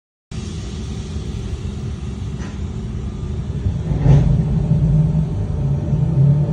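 Electric commuter train running with a steady rumble and low hum, cutting in suddenly after a brief silence; the hum grows louder about four seconds in, with a couple of faint knocks.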